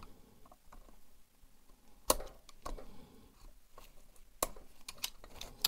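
Screwdriver tips clicking and scraping against the brittle plastic glow-plug connector of a Webasto Thermo Top V heater as it is pried loose. There are a few sharp clicks, the loudest about two seconds in.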